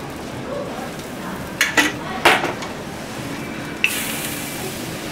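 Metal kitchenware clattering three times in quick succession. Then, about four seconds in, a sudden steady sizzle as crepe batter goes onto the hot electric crepe griddle and is spread.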